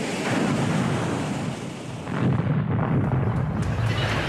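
Deep rumbling explosion sound effect in two long swells, the second starting about two seconds in and lasting nearly three seconds.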